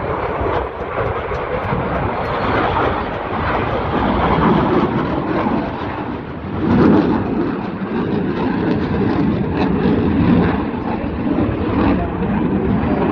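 Eurofighter Typhoon's twin EJ200 turbofan jet engines, a loud, rough roar that swells and fades as the jet flies its display.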